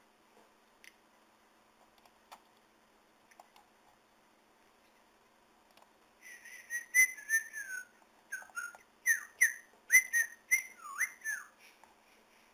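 A few faint computer-mouse clicks, then from about halfway through a run of short whistled notes lasting about five seconds, several of them sliding downward in pitch.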